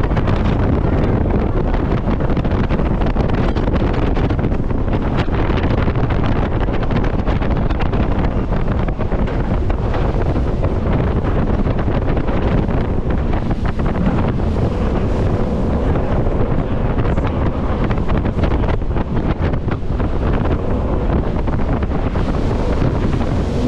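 Jet boat speeding along a river: loud, steady wind buffeting the microphone over the rush of water and the boat's running engine.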